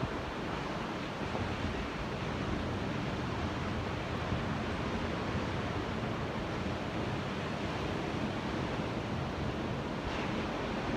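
Ocean surf: a steady wash of waves with no single wave standing out.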